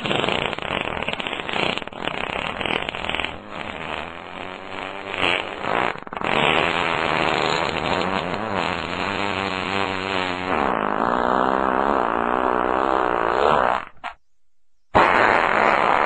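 Fart sound: a long, drawn-out fart with wavering pitch that cuts off abruptly about fourteen seconds in, followed a second later by another one starting.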